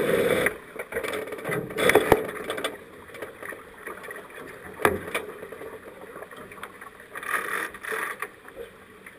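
Water rushing and splashing along the hull of a racing sailboat under way, with a few knocks from deck gear, the sharpest about five seconds in.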